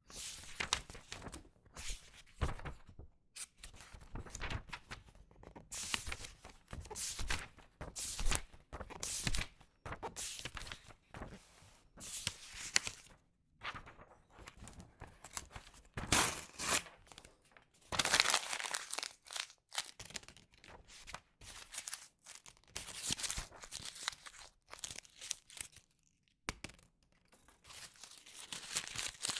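Notebook paper being handled close up: an irregular run of short rustling, crinkling and crumpling noises with brief pauses between them. It starts abruptly out of silence.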